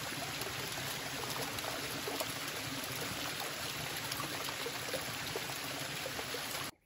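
A small waterfall trickling down a rock face and splashing into a shallow pool: a steady rush of running water that cuts off suddenly near the end.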